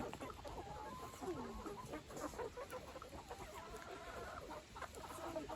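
Chickens clucking faintly: many short, scattered calls from a flock.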